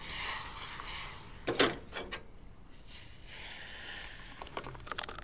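Wooden spoon stirring a thick raspberry and honey sauce in a small stainless steel saucepan, with a couple of sharp knocks against the pan about one and a half seconds in. Near the end, light clicks as the sauce is poured from the pan into a glass.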